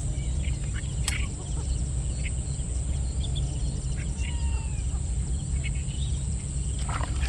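Rural outdoor ambience: a steady low rumble, a constant high insect buzz, and a few faint bird chirps, with a single click about a second in.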